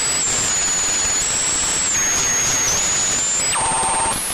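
Synthesized sci-fi radio-tuning interference: steady crackling static with a thin, high whistling tone that steps down in pitch and back up, and a short cluster of lower tones near the end.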